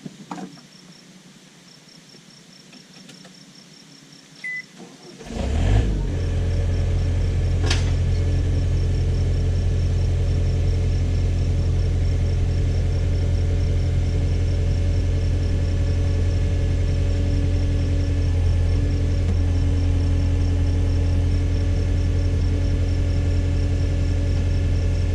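Case/Davis D100 backhoe's engine cranks and catches about five seconds in, then runs steadily. Before it starts, only a faint high insect chirping is heard.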